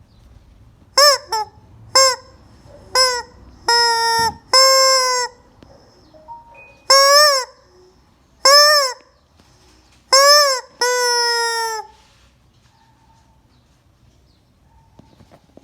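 Chicken giving loud, honking squawks, about ten calls in two runs: short ones at first, then longer drawn-out ones, each rising and falling in pitch. The last few seconds have no calls.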